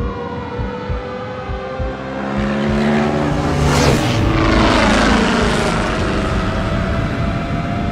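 Dirt bike engine running at high revs, swelling to a loud pass-by about four seconds in, its pitch dropping after it.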